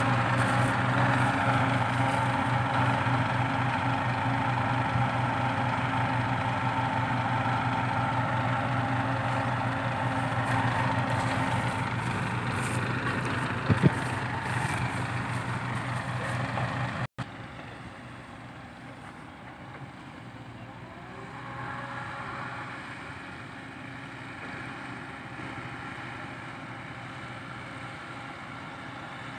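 Diesel engines of a Komatsu PC80 excavator and a dump truck running close by while the excavator loads the truck, with one sharp knock about 14 seconds in. After a sudden cut the engine sound is fainter and more distant.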